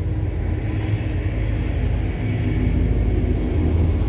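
Steady low rumble under a continuous hum of honeybees buzzing around an open hive as a swarm is being hived.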